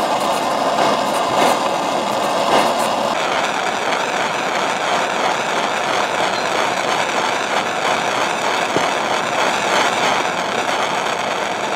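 Steady roaring hiss of a gas burner flame heating the sensor rig, changing in tone about three seconds in.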